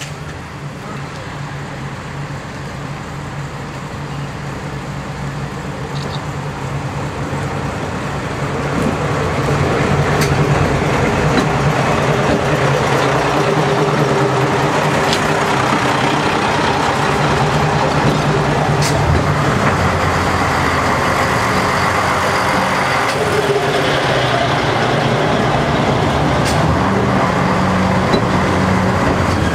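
KiHa 58-series diesel railcar train pulling into the station, its diesel engines growing louder over the first ten seconds as it approaches, then running steadily loud as the cars roll slowly past. A few sharp clicks sound along the way.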